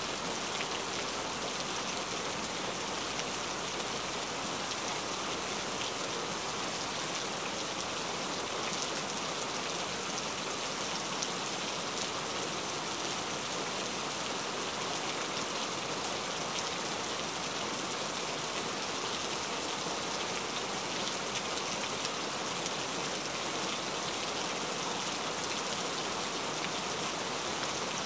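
A steady, even hiss like falling rain, unchanging throughout.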